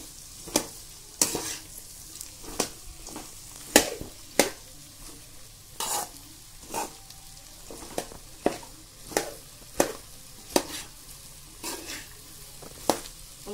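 Metal spatula scraping and knocking against the pan as sliced okra is stirred and turned in hot oil, an irregular stroke about once a second, over a low sizzle of frying.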